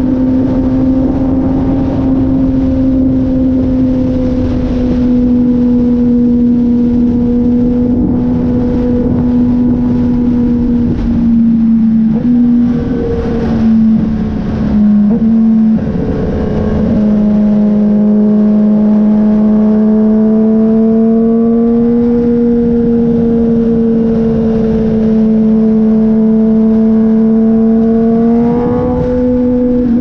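Kawasaki ZX-10R's inline-four engine running steadily at highway cruising speed, heard from the rider's seat over wind rush. About halfway through, the engine note wavers and dips briefly, then holds a little lower and rises slightly near the end.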